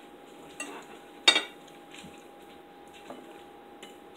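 Forks and knives clinking on ceramic dinner plates: a few short clinks, the loudest a little over a second in.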